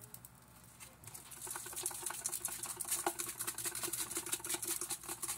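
Garlic pepper seasoning shaker being shaken over steak in a pan, its granules rattling in quick repeated strokes that start about a second in.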